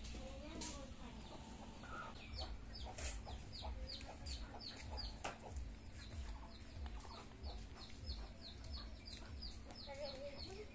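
Chickens in a village yard: a rapid string of short, high, falling chirps, about three a second, starting about two seconds in, over fainter lower clucking.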